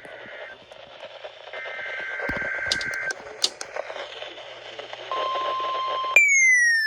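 NOAA Weather Radio received through hiss and static, sending its SAME alert header as warbling two-tone data bursts. About five seconds in a steady alert tone starts. Near the end a loud siren-like tone begins high and falls slowly.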